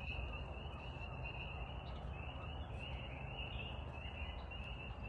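Crickets chirping at dusk: a steady run of short, same-pitched chirps, about three a second, over a low background rumble.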